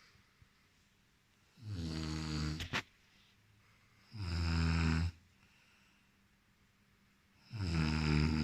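A man snoring during sleep: three loud snores, each about a second long and about three seconds apart. The first snore ends in a sharp click.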